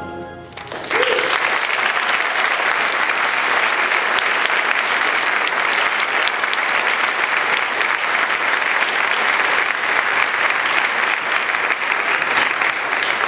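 Audience applauding: a dense, steady clapping that rises about a second in, just after the choir's song ends, and keeps going.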